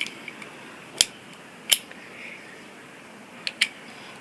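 Sharp metallic clicks from a Heritage Rough Rider .22 single-action revolver as its cylinder is worked back into the frame: one about a second in, another shortly after, and a quick pair near the end.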